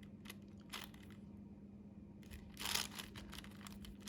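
5x5 Rubik's cube being turned by hand: a few light plastic clicks, then a longer rattling run of layer turns a little under three seconds in.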